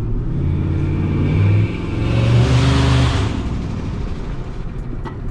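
Turbocharged 5.4-litre V8 of a Ford F-150 pulling hard under boost, heard from inside the cab. The note dips briefly a little under two seconds in, then a loud rushing hiss rides over the engine for about a second before it eases off.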